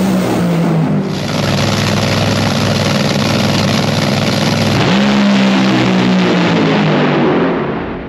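Top Fuel dragster's supercharged nitromethane V8 running at full throttle down the drag strip, very loud, with the engine note rising again about five seconds in and the sound fading near the end.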